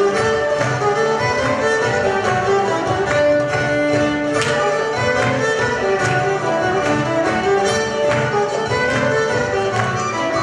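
Cypriot traditional ensemble playing a zeibekiko dance tune, with violins carrying the melody over laouto and a drum keeping a steady beat.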